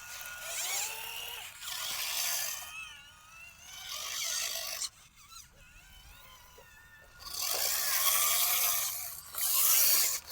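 Small electric motor and gears of a radio-controlled toy vehicle whining, its pitch wavering up and down as the throttle changes, in stretches with a quieter spell near the middle.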